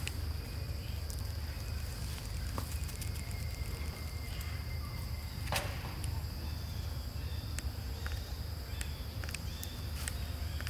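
Insects droning steadily on one high note, over a low steady rumble, with scattered faint clicks and one sharper click about five and a half seconds in.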